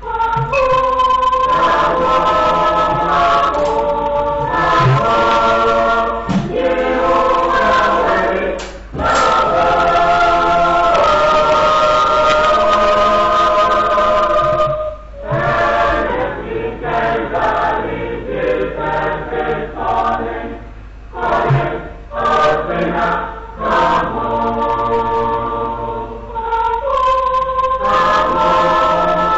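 A church congregation or choir singing a hymn a cappella, several voices in harmony, in held phrases with short breaks between them.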